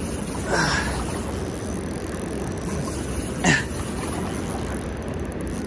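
Steady rushing of turbulent river water pouring through the dam's gates, with two short sweeping sounds about half a second and three and a half seconds in.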